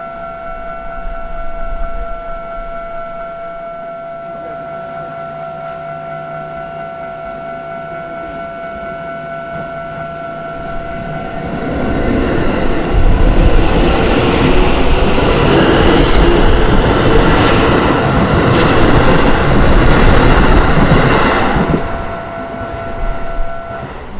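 Japanese level-crossing warning bell ringing steadily while a Keisei Chiba Line train passes. The train comes up about eleven seconds in and goes by loudly for roughly ten seconds, with wheels clattering over the rail joints. It fades out, and the bell stops near the end.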